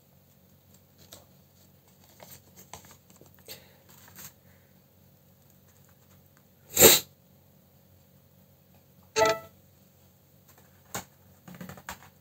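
Soft rustling and light clicks of paper cards being handled and slid about on a table, with two louder short noises about seven and nine seconds in, the second with a brief tone in it.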